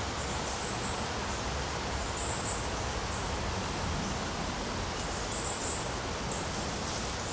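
Steady outdoor background hiss, with a few faint, short high-pitched sounds about half a second, two seconds and five seconds in.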